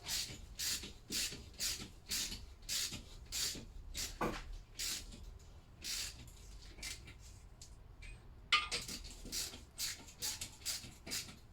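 Hand ratchet clicking as it runs the cylinder head nuts down on a Lister D engine, in quick back-and-forth strokes about twice a second. There is a short lull about two-thirds of the way through, followed by a sharper metallic clink.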